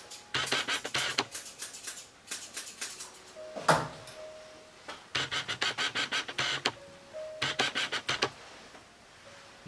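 Grooming shears snipping a dog's coat in quick runs of crisp snips, several to the second, with one louder clack a little under four seconds in.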